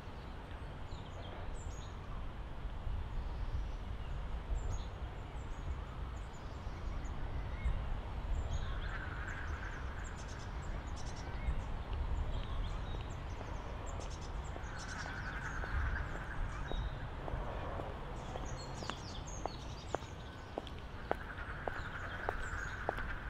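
Park ambience: small birds chirping throughout over a steady low rumble, with ducks calling in three short bursts. Near the end, footsteps on a wet path grow clearer as the walker comes closer.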